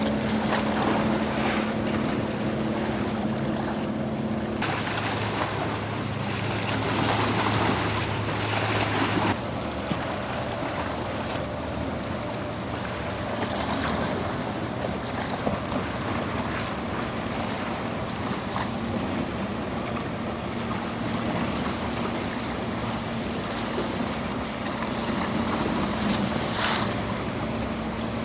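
Motorboat engines running with a steady hum over waves washing and wind buffeting the microphone. A louder rush of noise with a deeper engine note comes from about five to nine seconds in.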